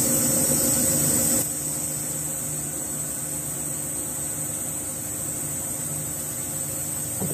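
Steady hum and hiss of a desktop laser cutter's exhaust fan and pumps running. The level drops a step about a second and a half in, then holds steady.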